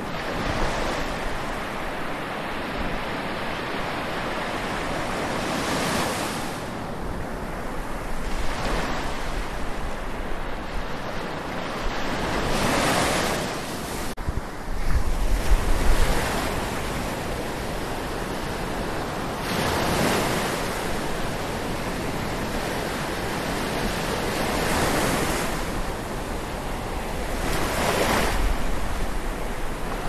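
Atlantic Ocean waves washing and lapping at the shore, the surf rising and falling every few seconds. Wind buffets the microphone with a low rumble about halfway through.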